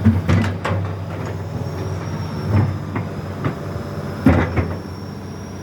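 Backhoe's diesel engine running steadily under work, with a series of irregular metal clanks and knocks from the bucket and arm, the loudest about four seconds in.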